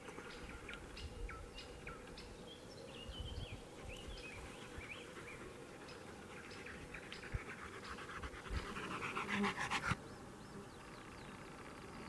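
A dog panting while small birds sing in short, high chirps and whistles. Near the end a louder, rapid buzzy stretch builds for a second or so and cuts off abruptly.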